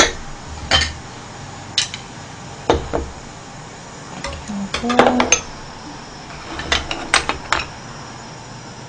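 Metal ladle and cutlery clinking against a pot and dishes: a scattering of separate clinks and knocks, the loudest about five seconds in.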